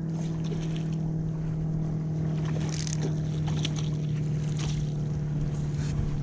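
Steady drone of a motorboat engine holding one pitch, with a few brief splashes in the shallows about three seconds in and again near five seconds.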